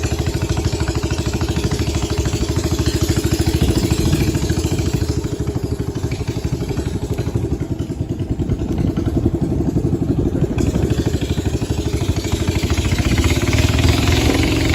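A boat's engine running steadily with a rapid, even pulsing, heard from on board; it gets a little louder near the end.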